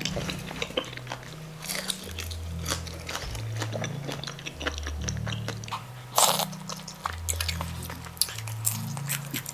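Close-miked mukbang eating sounds: biting and chewing mouthfuls of malatang, with many small clicks and crackles of the chopsticks and spoon on the bowl, and a louder burst about six seconds in.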